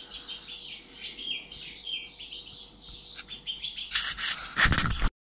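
Small birds chirping and twittering in the background, then, about four seconds in, a short burst of loud rustling and bumps before the sound cuts off suddenly.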